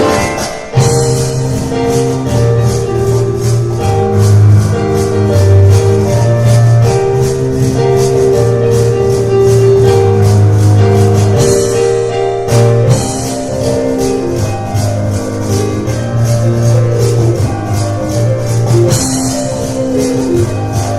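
Live instrumental music from a piano and cajon duo: piano chords and runs over a fast, steady percussion beat.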